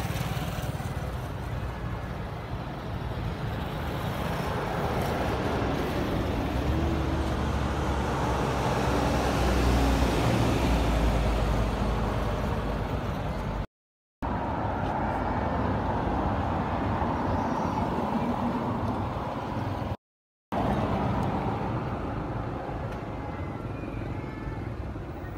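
A motor vehicle's engine rumble, swelling to its loudest about ten seconds in and then fading. The sound cuts out twice briefly.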